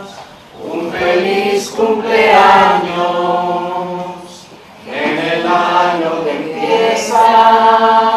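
A group of voices singing a Spanish-language Christian chorus together, a sung birthday blessing based on Joshua 1:9, in long held phrases with short breaks about half a second in and again about halfway through.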